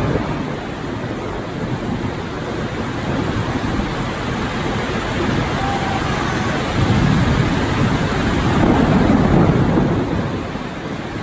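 Heavy tropical rainstorm: rain pouring steadily, with low rumbles of thunder swelling up twice in the second half.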